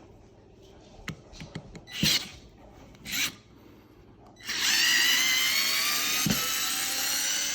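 Worx 4-volt cordless screwdriver running in reverse to back a screw out of wood: a steady motor whine starting about halfway through, its pitch slowly rising as it runs. A few short handling knocks come before it.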